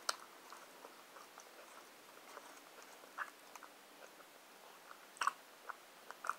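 Quiet chewing of soft food, with scattered short mouth clicks and crinkles of a paper food wrapper being handled; the loudest cluster comes about five seconds in.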